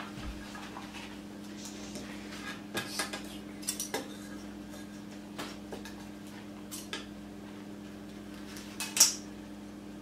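Scissors snipping ribbon into strips: scattered short snips and clicks, a cluster a few seconds in and the loudest near the end, over a low steady hum.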